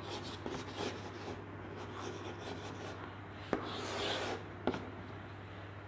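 Chalk writing on a chalkboard: soft scratching strokes, with two sharp taps of the chalk against the board about halfway through, over a steady low hum.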